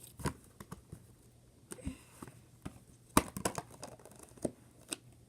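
Blue slime being squeezed and stretched by hand, giving irregular sticky clicks and pops, the loudest a little past three seconds in.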